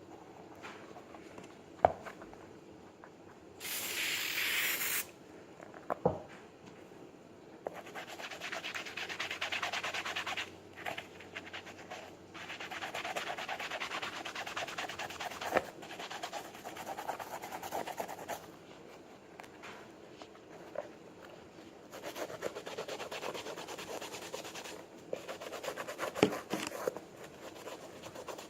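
Scrubbing a dirty canvas Converse sneaker with a toothpaste-and-water cleaner: spells of scratchy rubbing several seconds long, with pauses between them. There is a short hiss about four seconds in, and a few sharp knocks.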